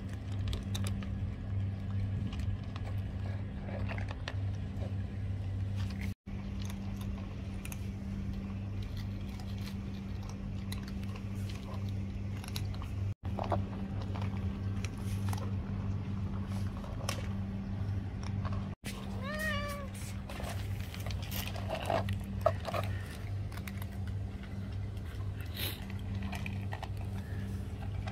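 Domestic cat meowing now and then, several short meows with the clearest about twenty seconds in, as it begs for food. A steady low hum runs underneath.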